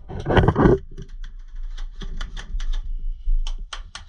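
Airsoft rifle firing single shots, a dozen or so sharp clicks at irregular spacing. A brief louder scuffing noise comes about half a second in.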